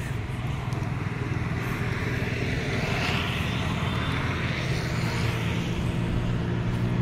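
Steady engine hum of motor traffic on the adjacent road, growing louder near the end as a vehicle approaches.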